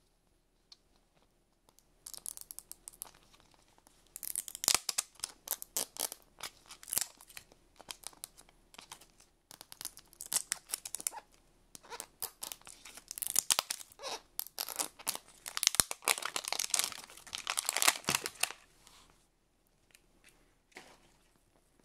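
Thin plastic seal strip being peeled and torn from the seam of a plastic toy capsule ball, crackling and tearing in irregular bursts, along with fingers rubbing and prying at the plastic. It starts about two seconds in and dies away a few seconds before the end.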